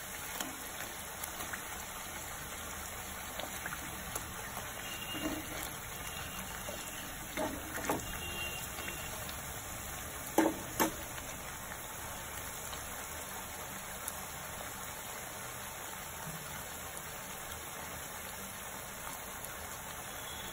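Rice-flour chekkalu (thin discs of rice-flour dough) deep-frying in hot oil in a kadai, a steady sizzle. A few light clicks come a little before halfway, then two sharp knocks in quick succession.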